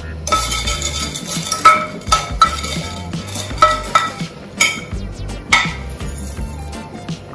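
A spoon stirring in a pot, with a series of sharp, ringing clinks against the pot as sugar is stirred into the sorrel liquid.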